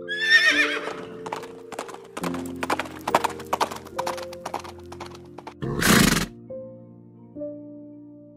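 A horse whinnying in one falling, quavering call, followed by a run of quick, uneven hoof clip-clops and a loud breathy blast about six seconds in. Soft background music plays throughout.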